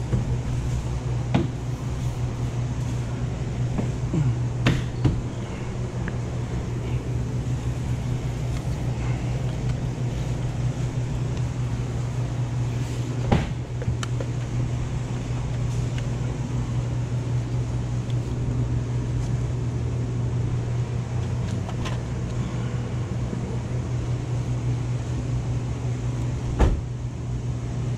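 Steady low mechanical hum, with a few light clicks and taps scattered through it.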